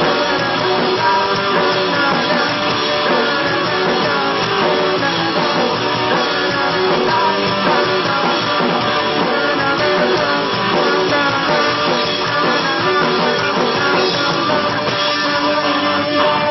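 Live pop-rock band playing a song with electric guitars, bass guitar and drum kit, at a steady, loud level.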